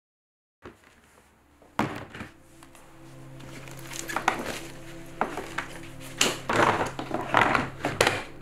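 Camera lenses and gear being packed into a plastic storage tote: several sharp knocks and thunks with rustling as items are set in, and a snap as the lid is pressed down near the end. Background music with a low sustained drone runs underneath.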